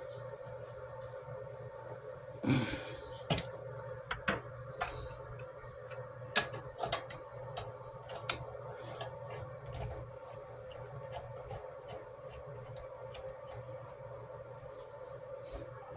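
A burst of light metallic clinks and knocks, some ringing briefly, over a steady hum: tools and metal parts being handled during plumbing work.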